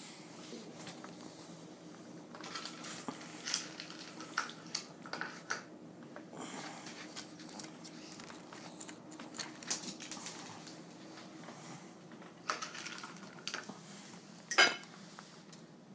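Kibble clicking and clinking against a dish as a pet works to get it out: irregular clusters of sharp clicks, with one much louder clink near the end.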